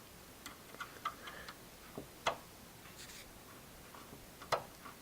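Irregular light clicks and ticks of a T10 Torx screwdriver working a small screw out of the Wi-Fi card inside an Xbox Slim, with a couple of sharper clicks about two seconds in and near the end.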